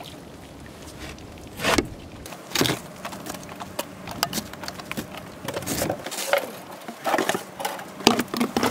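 Wet rope being hauled in hand over hand over the side of a small boat, with scattered knocks and slaps of the line and gear against the hull, two of them loud within the first three seconds and a quicker run of them near the end.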